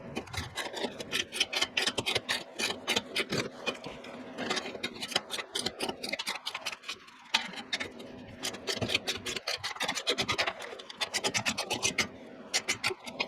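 Hand ratchet wrench clicking in quick runs of several seconds each, with short pauses between, as a bolt is driven during the exhaust install.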